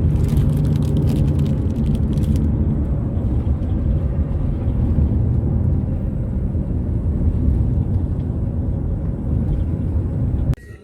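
Steady low rumble of a car driving, road and engine noise, with crackling over the first couple of seconds. It cuts off abruptly near the end.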